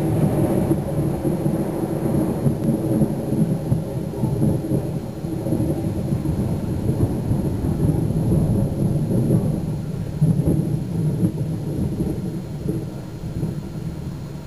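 Thunder from a close cloud-to-ground lightning strike: a long, loud, low rolling rumble that swells and ebbs and slowly fades over the last few seconds.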